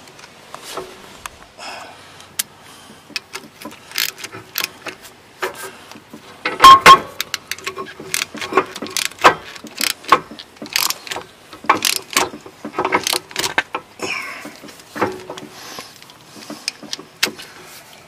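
Hand ratchet clicking in short bursts with small metal rattles, as the brake hose bolt is tightened into a new rear brake caliper. One louder metal clatter comes a little over a third of the way in.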